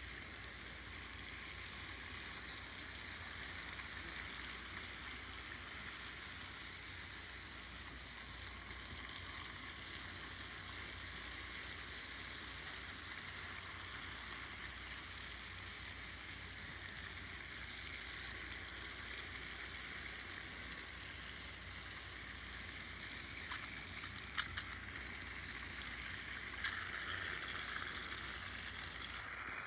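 Several battery-powered Trackmaster toy train engines running on plastic track together, a steady whirring of small motors and gears, with a few light clicks in the last few seconds.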